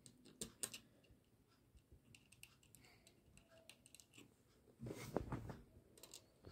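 Faint clicks and taps of fingers handling the hose clamp and brass fitting on an LPG iron's gas control valve as it is tightened, with a denser run of clicks about five seconds in.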